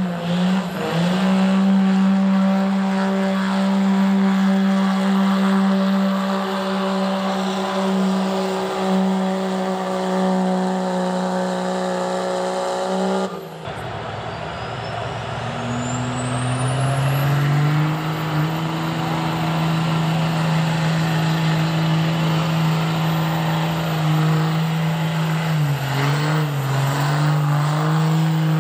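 Modified diesel pickup engines running at high revs under load while pulling a sled: one engine holds a steady high pitch, then, after an abrupt cut about halfway through, a second truck's engine climbs in pitch and holds there while a high whine rises with it.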